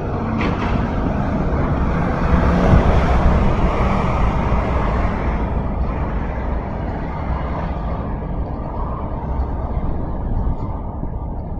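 Wind buffeting the microphone: a steady low rumble, with a hiss that swells a couple of seconds in and fades again.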